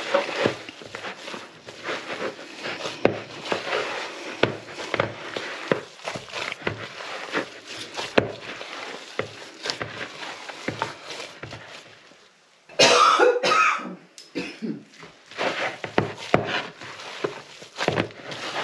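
Hands kneading a soft potato-and-quark dough, a run of irregular squelching and slapping. About thirteen seconds in, a person coughs briefly.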